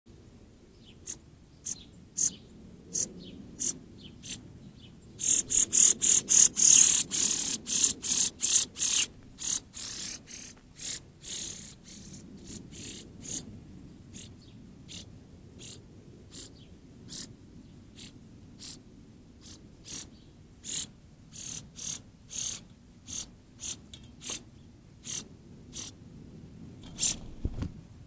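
Small songbirds giving short, sharp chip notes, about one or two a second, with a loud, rapid run of them a few seconds in.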